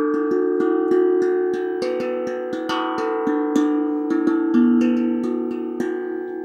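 Homemade steel tongue drum, made from two deep-frying kadai pans welded together, played with the fingertips. A quick run of light strikes, about four a second, whose ringing metallic notes overlap and sustain.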